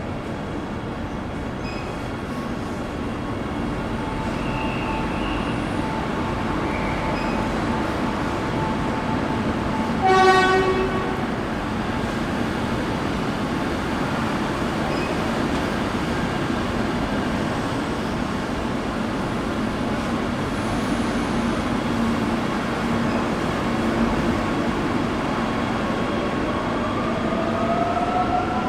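Steady rumble of a train running. About ten seconds in there is one short horn toot, and near the end a rising whine as it picks up speed.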